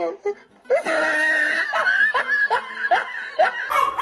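A person laughing hard in a run of repeated bursts. Near the end a dog barks.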